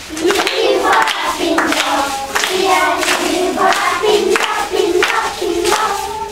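A group of young girls singing a song together in unison, in short phrases of held notes.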